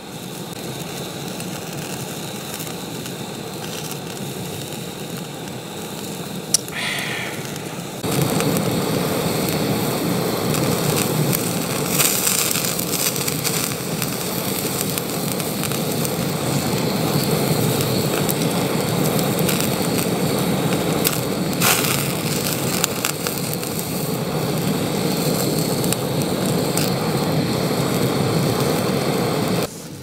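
Meat sizzling in a pan over a gas burner: a steady hiss with small pops, louder from about eight seconds in.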